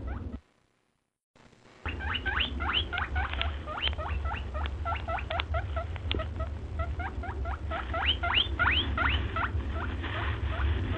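Rapid high-pitched animal squeaks, each one sweeping upward in pitch, several a second, over a low steady hum. There is a short silence about half a second in.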